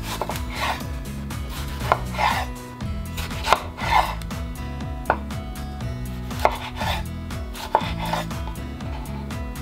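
Kitchen knife slicing through a tomato on a bamboo cutting board. Each soft cutting stroke ends in a sharp tap of the blade on the board, about five taps spaced a second or more apart.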